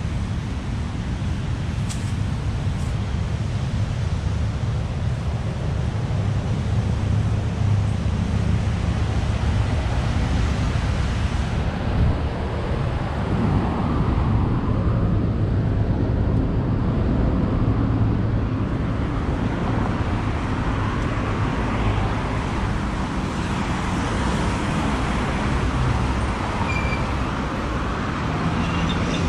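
Steady road traffic noise from passing cars, with a low rumble of wind on the microphone.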